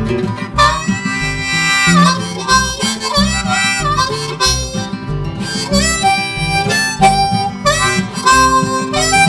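Background music: a harmonica solo playing held and bending notes over strummed acoustic guitar, in a folk-style song.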